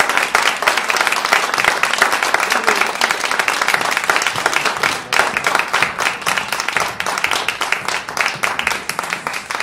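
Audience applauding, a dense, steady clapping that eases a little near the end.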